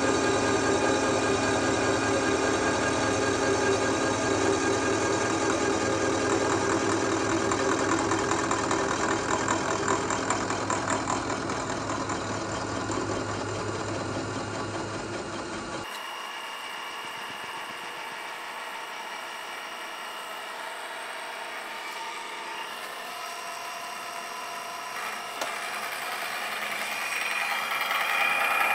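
Milling machine with a face mill taking a 1/16-inch-deep facing cut across an iron vise casting: steady cutting and spindle noise with a held ringing tone. The machinist judged this pass right on the verge of chatter. About 16 seconds in the sound drops abruptly to a quieter machine run, then grows louder again near the end with a higher steady tone.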